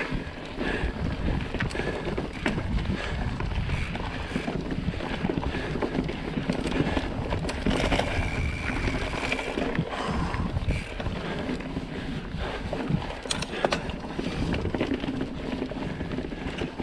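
Mountain bike riding along a dirt forest singletrack: tyres rolling over dirt and roots, with the bike rattling over bumps in many short clicks, and wind on the microphone.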